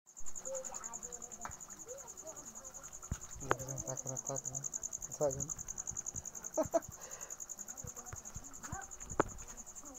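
Cricket chirping in a steady, fast, high-pitched trill, with a few soft knocks from handling under it.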